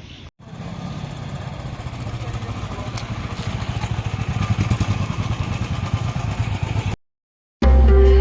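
Motorcycle engine running, its exhaust pulses growing gradually louder. It cuts off abruptly near the end, and music starts.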